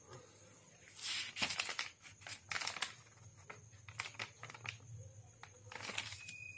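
Paper pages of a notebook being handled and turned: a run of short rustles and crinkles, with a few more about four and six seconds in.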